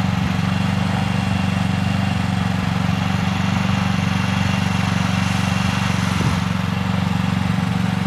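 Small portable gasoline generator running steadily, powering a battery tender that is charging a dead snowmobile battery.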